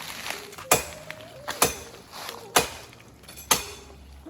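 Four sharp strikes about a second apart: a hand tool hitting wood.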